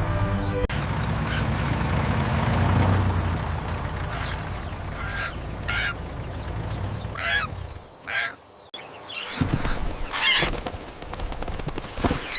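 Bird calls: short squawks or honks, a few at first and then a quicker run after a brief pause, over a low rumbling background that fades out near the middle.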